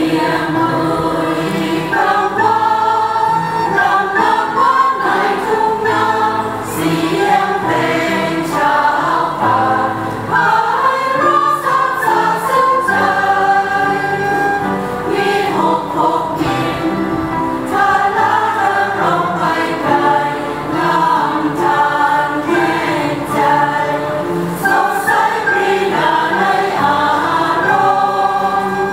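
Church choir singing a hymn in several voices, with an end-blown flute (khlui, recorder type) playing along.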